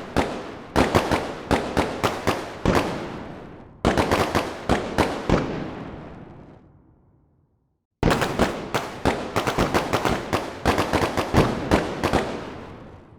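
Fireworks going off in volleys of sharp bangs and crackles, several a second, each volley echoing away. A new volley starts about four seconds in; the sound fades to silence, and another volley starts about eight seconds in and dies away near the end.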